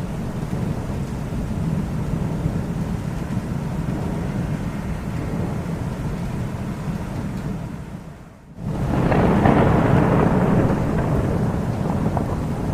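Thunder rumbling steadily, then dying away for a moment about eight seconds in before a new, louder peal breaks in sharply and rolls on.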